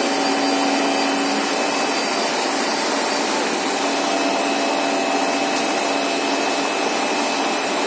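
A 2000 mm cast stretch film line running: a steady machine noise of its motors, rollers and winder, with a few faint steady tones.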